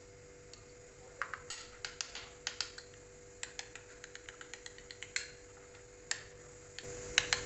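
Steel spoon clinking and tapping against a small bowl while stirring a thick mayonnaise-and-sauce dip: a quick run of sharp clicks from about a second in to about five seconds, then a few more near the end.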